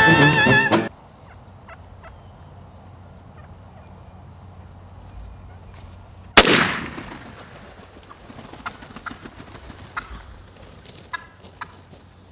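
Background music cuts off about a second in; after a few quiet seconds with wild turkeys gobbling faintly, a single loud shotgun blast goes off about six seconds in, the one shot that drops two gobblers, followed by scattered faint knocks.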